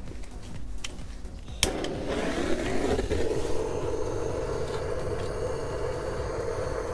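A fire being lit in the firebox of a brick kazan stove: after a few faint clicks, a steady rushing flame noise starts abruptly about a second and a half in and holds.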